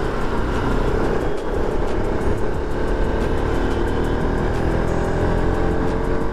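Motorcycle engine running while riding in city traffic, with steady road and wind noise; its pitch rises gently partway through.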